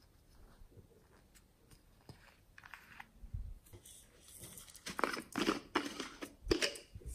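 A red plastic slime container being handled: a few faint clicks, then a run of crinkly scraping and rustling of plastic, loudest over the last few seconds.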